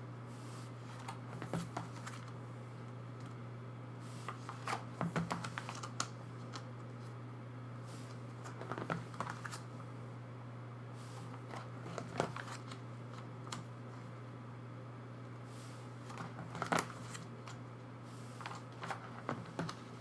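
Plastic photocard sleeves and binder pages being handled and turned: short rustles, crinkles and small clicks that come in about six brief clusters, over a steady low hum.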